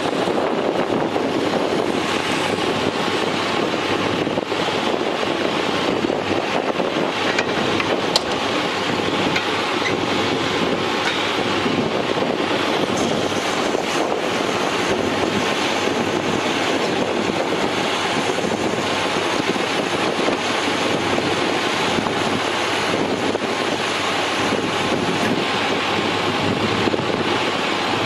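International DT466 inline-six turbo diesel of a work truck running steadily at a constant speed.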